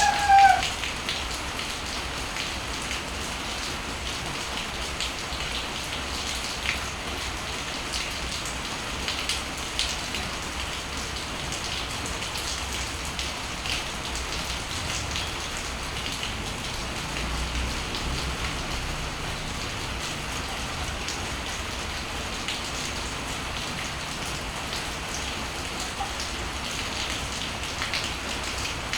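Steady morning rain falling in front of a house, an even hiss with scattered drops ticking on nearby surfaces. A rooster's crow ends in the first second.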